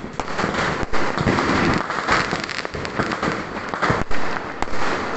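Aerial fireworks bursting with repeated sharp bangs, loudest about a second in and around four seconds in, over a continuous dense crackle of many firecrackers going off together.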